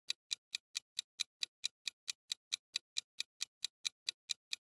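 Countdown-timer ticking sound effect: light, even clock-like ticks, about four and a half a second.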